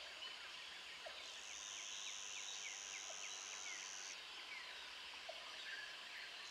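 Faint outdoor nature ambience: scattered short bird chirps over a soft hiss, with a high steady buzz from about a second in until about four seconds in.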